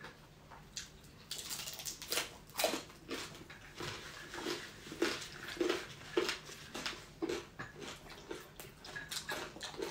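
Close-up chewing and crunching of crispy fried pork knuckle (crispy pata) skin, crackly bites mixed with wet mouth sounds in a rhythm of roughly two chews a second.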